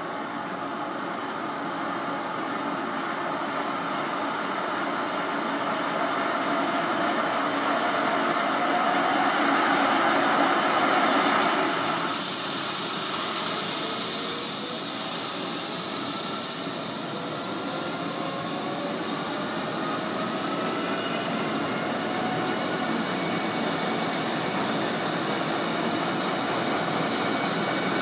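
Helicopter turbine engine and main rotor running up with the aircraft still on the pad: a steady rushing whine that swells and then eases about twelve seconds in. After that, several whining tones climb steadily in pitch as the engine spools up toward takeoff power.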